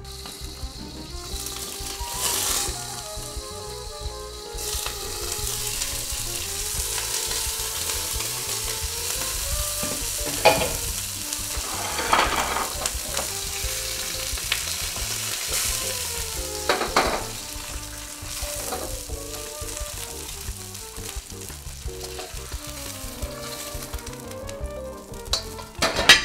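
Eggs frying in a hot wok, sizzling steadily, with a few sharp knocks near the middle as the wok is handled.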